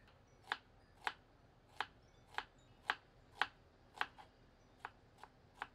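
Kitchen knife slicing small onions into wedges on a wooden chopping board: a series of sharp knocks as the blade hits the board, about two a second, the last few fainter.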